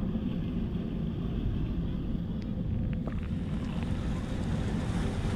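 Wind rumbling steadily across the microphone, over the wash of sea water against breakwater rocks.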